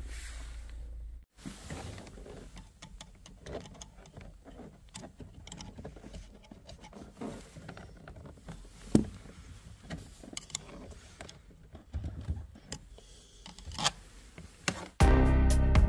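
Faint, scattered clicks and rustles of hands handling plastic dashboard trim, with a few sharper clicks, the loudest about nine seconds in. A steady low hum cuts off abruptly a second in, and music starts near the end.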